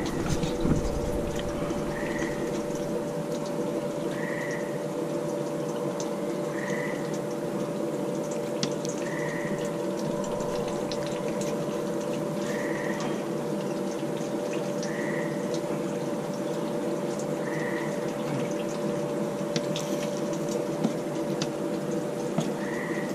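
A steady hum with a watery hiss, with a short high chirp repeating about every two and a half seconds. Faint clicks of knife work on a plastic cutting board.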